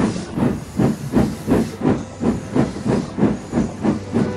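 Steam locomotive chuffing at a steady pace, about three exhaust beats a second, each with a hiss of steam, over a low steady hum.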